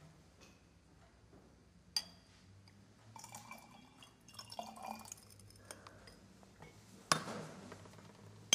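Laboratory glassware clinking as it is handled around a nitric acid reagent bottle. There is a sharp clink about two seconds in, a run of light ringing clinks in the middle, and a louder knock near the end.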